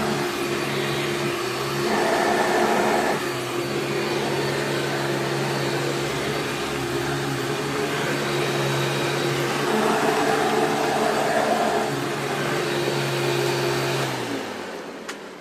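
Hoover PowerDrive Supreme upright vacuum cleaner running and sucking up shredded paper. A steady motor hum sits under a rushing noise that swells louder twice. Near the end it is switched off and the motor winds down.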